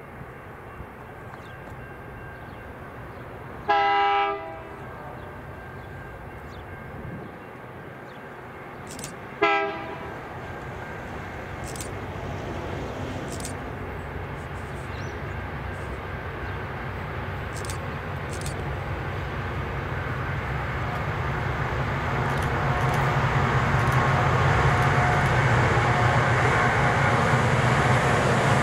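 Diesel freight train approaching: its locomotive sounds a short multi-tone horn blast, then a briefer one about five seconds later. The engine and train noise then grows steadily louder as it nears.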